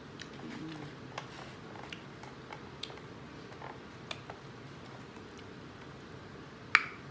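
Close-up eating sounds: chewing and wet mouth clicks, with a fork tapping and picking through a plate of food, about one sharp click a second and one louder clack near the end. A brief low hum of enjoyment about half a second in.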